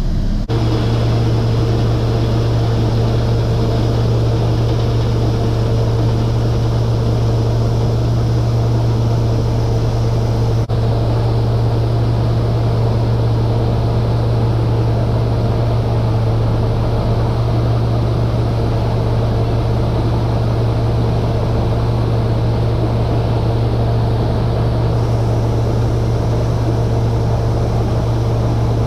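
Vehicle engine running steadily with a constant low hum while a grain trailer dumps its load of shelled corn.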